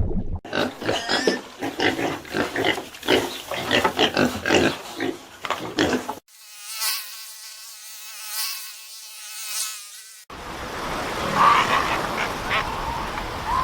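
Three different animal recordings cut one after another. First comes a quick run of short calls, then a steady buzzing drone lasting about four seconds, and then a third recording with calls that begin in the last few seconds.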